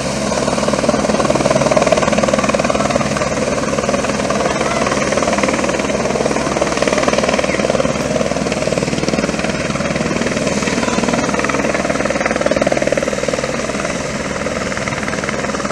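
Firefighting helicopter with a slung water bucket, its rotor running in a steady beat as it lifts the filled bucket from the river and climbs toward the listener.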